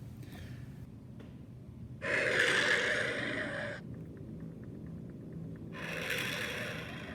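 Two breathy rushes of air, like sharp drawn breaths, each about one and a half to two seconds long, the first louder.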